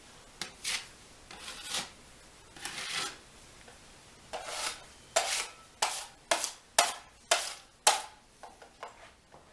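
Putty knife scraping across drywall as it skims joint compound smooth over a filled hole: a series of separate scraping strokes, slower at first, then shorter, sharper and about two a second in the second half, fading near the end.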